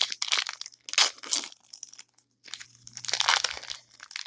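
Plastic trading-card pack wrapper being torn open and crinkled by hand, in several irregular bursts of crackling.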